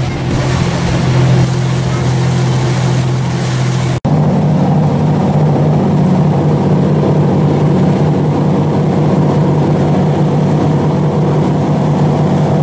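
A fishing boat's engine running at a steady drone under the rushing, churning water of its wake and bow spray. The sound drops out for an instant about four seconds in, then carries on as before.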